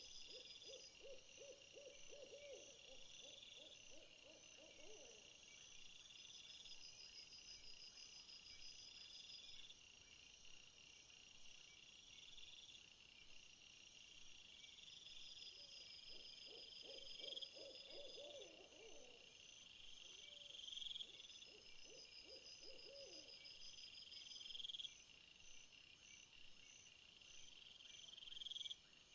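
Faint chorus of night insects: steady high chirring and pulsing, with a buzzy rising call repeating every two to three seconds. Twice a low, wavering trill sounds for a few seconds each time.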